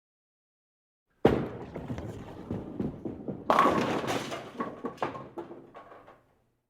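Bowling ball dropped onto the lane with a heavy thud and rolling down it with a rumble, then striking the pins about two seconds later in a loud burst of clattering, ringing wooden pins that tumble and settle over the next couple of seconds.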